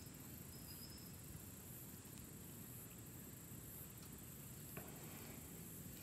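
Near silence: faint outdoor background with a steady high insect chorus.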